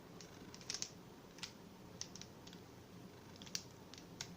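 Plastic Rubik's cube being turned through a short algorithm: a string of faint, irregularly spaced clicks as its layers are rotated.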